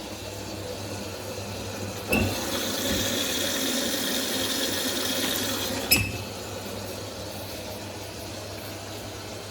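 Washing machine: a sharp click, then about four seconds of steady noise, cut off by another sharp click, over a low steady hum.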